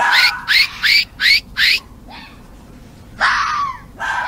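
Fox barking: a rapid series of short, high yaps, about three a second, that stops a little under two seconds in, followed by two longer calls that fall in pitch near the end.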